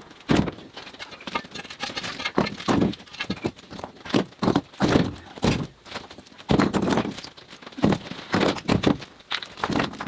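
Broken concrete chunks being picked up off a rubble-strewn floor and tossed into a pickup truck bed full of concrete: about a dozen irregular heavy clunks of concrete hitting concrete, with gritty scraping of rubble between them.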